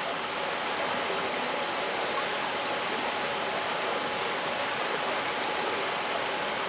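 Steady rush of running water flowing through hatchery incubation trays.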